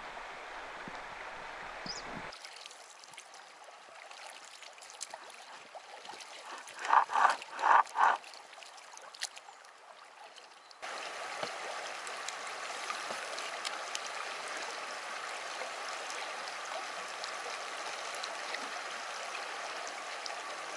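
River water flowing and rippling steadily, louder and even after a cut about eleven seconds in. Before that, a quieter stretch with four short loud pitched notes about seven to eight seconds in.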